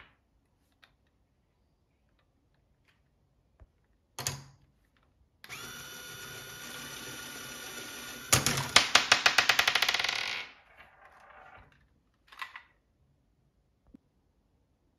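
Small Lego Technic electric motor running with a steady hum for about three seconds, then a sharp snap as the launcher's throwing arm fires, followed by about two seconds of rapid plastic gear clicking. A short knock comes just before the motor starts, and faint clicks and scrapes follow.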